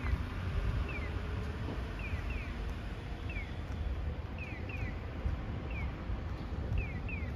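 Electronic chirps of a Japanese audible pedestrian crossing signal, a short falling chirp in a regular alternation of one 'piyo' and a double 'piyo-piyo' about once a second. Wind rumbles on the microphone underneath.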